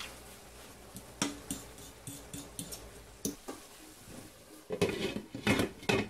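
Cookware being handled: light clicks and knocks of utensils against a skillet, then a cluster of louder clatters near the end as a glass lid is set on the pan.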